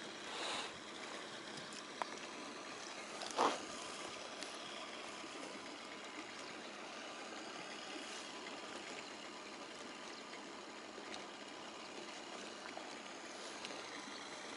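Outdoor ambience by open lake water: wind and small waves make a steady wash, with a faint steady hum underneath. There is a soft whoosh about half a second in, a sharp tick at about two seconds, and a short, louder swish about three and a half seconds in.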